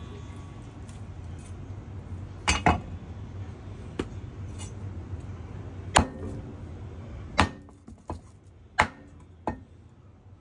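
Chinese cleaver knocking against a wooden cutting board and the chicken carcass as a cooked chicken is cut apart. About seven sharp knocks, spaced apart, with a close pair a little after two seconds and the loudest, briefly ringing knock about six seconds in.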